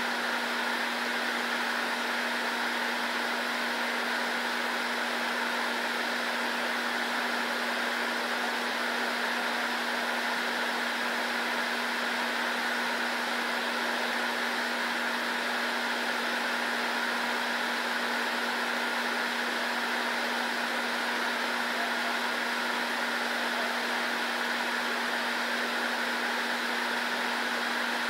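Steady fan whir of room air-handling equipment with a constant low hum, unchanging throughout.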